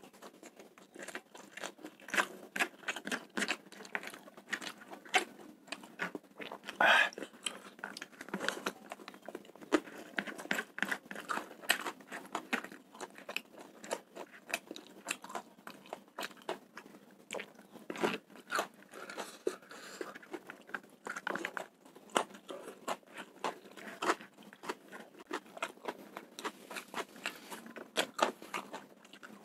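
Close-up mouth sounds of a person chewing spicy fried rice topped with raw bird's eye chillies: many small, irregular wet clicks and crunches throughout.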